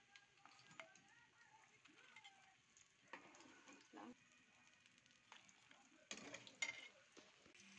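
Faint sizzle of milkfish steaks frying in oil in a wok, with a few clicks and knocks of metal utensils against the plate and pan, the loudest a pair about six seconds in.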